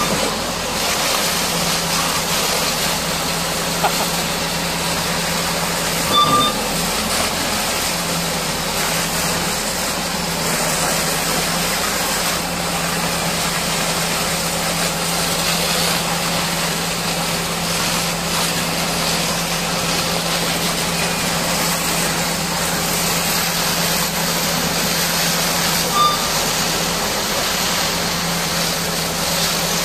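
High-pressure water jet hissing steadily as it washes a Caterpillar D6R bulldozer, over a steady low motor hum, with a short high beep about six seconds in and again near the end.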